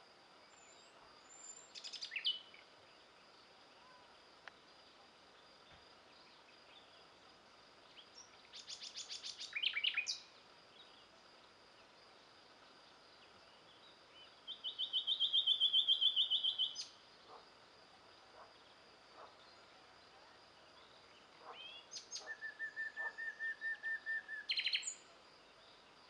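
Songbirds singing in four separate phrases of rapid repeated notes: about 2 s in, around 9–10 s, from about 15 to 17 s, and from about 22 to 25 s.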